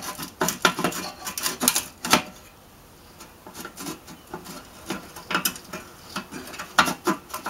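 Rapid metal clicks and rattles from small clamps being loosened with a screwdriver and worked off the pipe stubs of an old air-cooled VW Beetle muffler. A dense run of clicks lasts about two seconds, then comes a short pause, then scattered clicks and taps.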